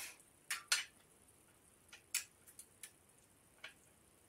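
Small metal parts clicking and clinking as a mudguard is fitted to a bicycle's front fork: about seven short, light clicks, the sharpest within the first second.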